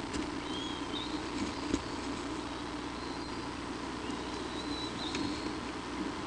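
Steady hum and hiss of the nest camera's outdoor microphone, with a few faint high chirps and a single sharp click a little under two seconds in.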